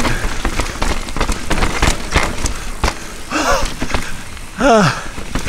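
Mountain bike descending a rough technical trail: tyres rolling over rocks and roots, with the bike rattling and knocking continually and wind noise on the chin-mounted camera. The rider makes two short vocal sounds about three and a half and nearly five seconds in, the second a falling groan.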